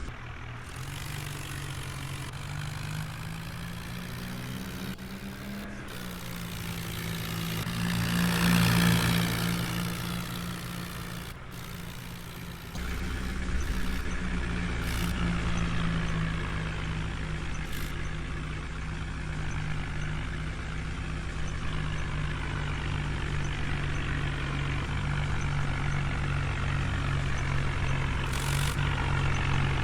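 Diesel engines of a backhoe loader and tractors at work. The engine note rises over the first few seconds, is loudest about eight to ten seconds in, and a heavier low rumble cuts in suddenly about thirteen seconds in and runs steadily.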